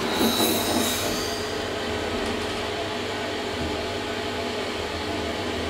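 SMW traction elevator car travelling in its shaft: a steady low hum and rumble. A brief high whine and hiss in the first second or so fade out.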